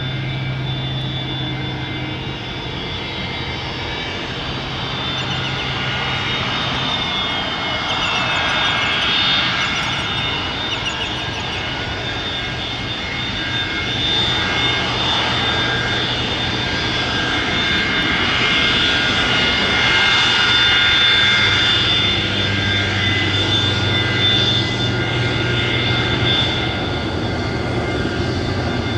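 Boeing 727-200 freighter's three rear-mounted Pratt & Whitney JT8D turbofans at taxi power: a steady jet roar with a high whine of several held tones over a low hum. One whine tone slides down about eight seconds in, and the sound grows a little louder past the middle.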